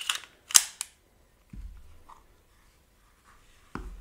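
Empty magazine pushed up into the grip of a 1917 DWM LP08 artillery Luger: two sharp metal clicks within the first second as it slides in and latches, the second the loudest. A soft low thump follows about a second and a half in, and another just before the end as the pistol is handled.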